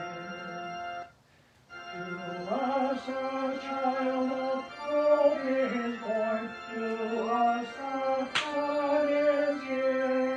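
A hymn sung to organ accompaniment, with held chords and voices carrying the melody; it breaks off briefly about a second in, between lines, then resumes.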